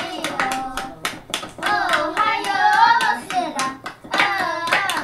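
High-pitched voices singing over fast, rhythmic sharp knocks, several a second, with a short break in the singing near the end.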